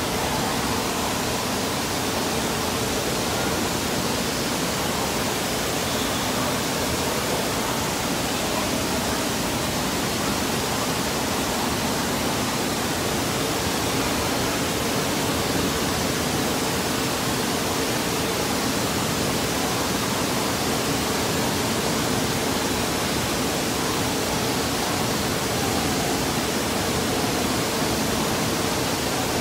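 Steady rush of splashing and falling water filling an indoor water park hall, an even hiss that stays constant throughout.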